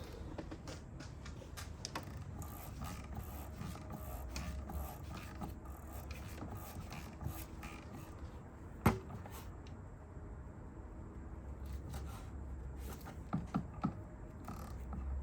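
Oil filter housing cap on a Range Rover diesel engine being screwed down and tightened, giving small creaks and scattered clicks, with one sharper click about nine seconds in and a few more near the end.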